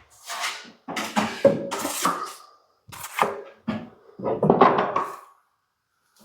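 Steel plastering trowel scraping filler across a plasterboard ceiling patch in a run of short, uneven strokes, each starting abruptly, with brief gaps between them.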